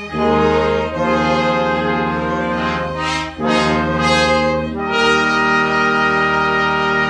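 Orchestral music with brass playing sustained chords. The chord changes about a second in and again about five seconds in, where a new chord is held, with two brief noisy rushes around the middle.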